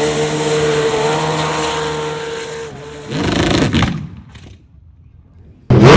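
Drag-racing Nissan Patrol's engine at full throttle launching up a sand strip, a steady high-pitched engine note that slowly fades away over about three seconds. A second surge of engine noise follows briefly, then a sudden loud launch starts near the end.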